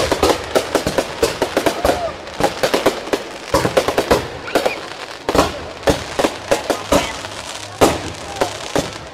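A fireworks display: aerial shells launching and bursting in quick succession, first a rapid run of pops, then separate bangs every half second to a second, a few of them much louder.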